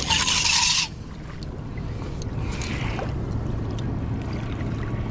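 Steel tape measure blade pulled out with a brief rasping rush lasting under a second near the start. A fainter scrape and a few small clicks follow as it is laid along the fish, over a steady low hum.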